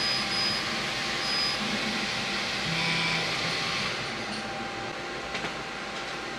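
xTool S1 20W laser engraver running: a steady hum and hiss from its fans and air assist, with a brief higher tone about three seconds in.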